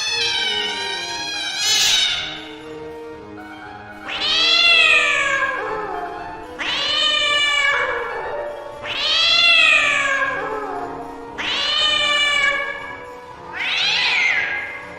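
A domestic cat meowing repeatedly: about six drawn-out meows, each rising and then falling in pitch, coming roughly every two seconds.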